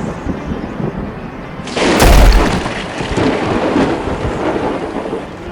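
Thunder with steady rain: a sudden loud thunderclap with a deep boom about two seconds in, rumbling away slowly over the following seconds.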